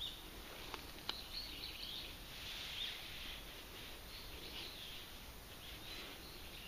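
Small birds chirping and twittering in quick, wavering notes, with two faint clicks about a second in.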